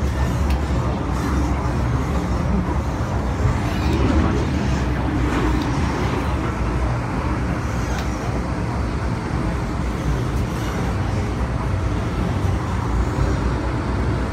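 Hong Kong MTR M-Train electric multiple unit running along the line, heard from inside the passenger car: a steady, even running rumble.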